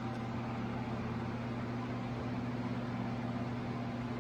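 A steady machine hum with a low drone and a fainter higher tone, unchanging throughout.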